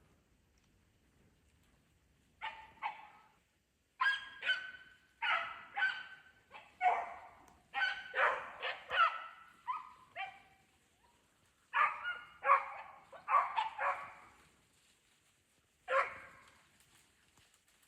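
Beagle hounds baying in a long string of drawn-out, falling calls with short gaps, the voice hounds give while running a rabbit. The calls start about two seconds in.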